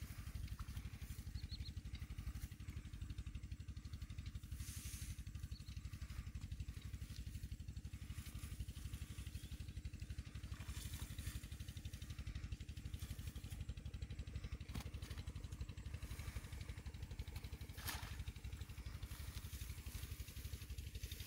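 Steady low drone of an engine running, with a few faint brief rustles.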